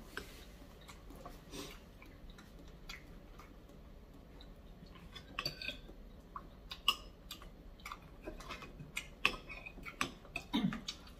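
Spoon clinking against a bowl of meatball soup while eating: a few faint light clicks at first, then sharper, more frequent clinks in the second half.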